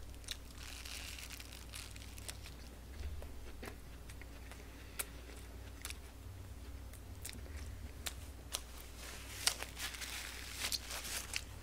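Quiet chewing and mouth clicks of a man eating a fast-food burger, with scattered small crunches. Near the end comes a short stretch of rustling as a paper napkin is wiped across his mouth.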